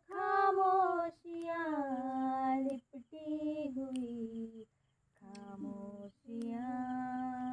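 A woman's voice humming a slow song melody without words, in long held notes that slide between pitches, broken by short pauses for breath and a longer pause about five seconds in.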